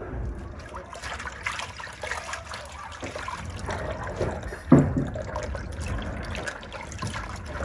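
A thin stream of running water pours into a basin while hands swish and rub okra and leafy greens in the water.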